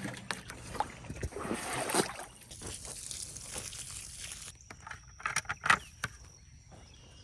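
Water sloshing in a plastic watering can and pouring from its rose onto a garden furrow, a steady splashing that stops about four and a half seconds in. A few short knocks and rustles follow as a plastic bucket of seeds is handled.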